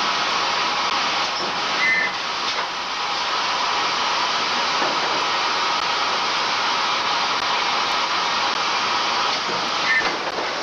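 Steady, loud rushing din of forge-shop machinery in a shovel plant where red-hot steel is being worked, with a brief high squeal about two seconds in and another near the end.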